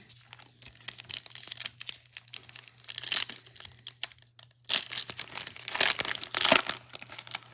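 Foil trading-card pack wrapper crinkling and tearing as it is opened by hand, a dense crackle with two louder spells, the second longer.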